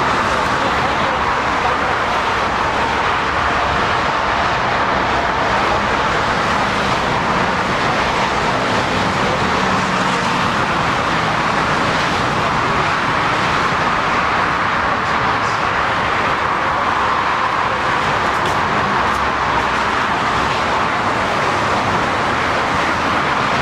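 Jet engines of a large aircraft running, a loud, steady rushing noise that holds level throughout.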